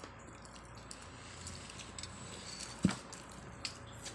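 Eating by hand: soft wet squishing of fingers working rice on a plate and chewing, with one sharp click about three seconds in.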